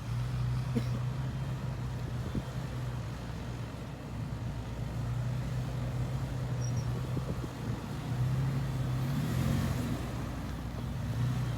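Off-road vehicle's engine running at low speed with a steady low drone, growing louder for a couple of seconds about eight seconds in, along with a brief hiss.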